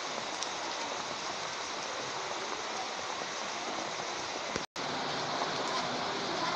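Steady hiss of rain falling, which cuts out completely for a split second a little before five seconds in.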